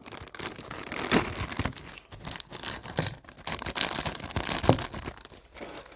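Plastic wrapping crinkling and rustling in a stream of small irregular crackles as a collectible figure's base is unwrapped by hand.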